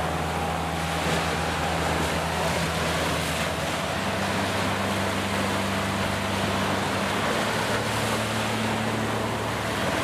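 Ocean surf washing in steadily on a sandy beach, small waves breaking and foam rushing up the shore. A low held drone sits underneath and shifts pitch a couple of times.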